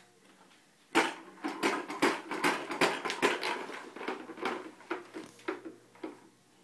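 Little Tikes plastic toy lawnmower clicking and clattering as it is pushed along, in an irregular run of sharp clacks about three or four a second, starting about a second in.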